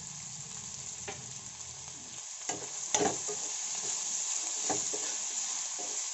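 Chopped onions, green chillies and curry leaves sizzling steadily in hot oil in a non-stick kadai. From about two seconds in, a steel spoon stirs them, scraping and clinking against the pan.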